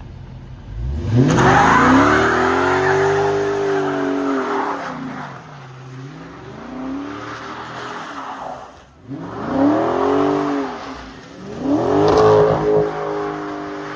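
Chrysler car engine revving hard, rising and falling back about four times, with the hiss of tires spinning and sliding on snow.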